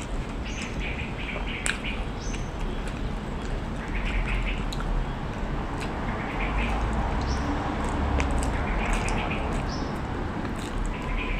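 Birds chirping in short calls every second or two, over a steady low rumble, with a few sharp clicks.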